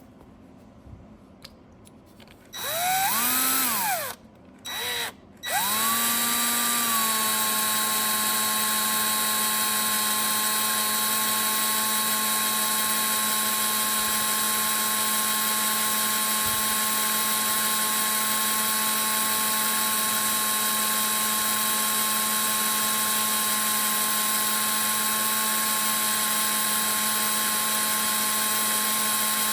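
Electric drill with a small 3/32-inch bit, used to drill out the rivets of pinball stand-up targets. About two and a half seconds in it spins up and down twice in short bursts, then runs steadily at an even pitch.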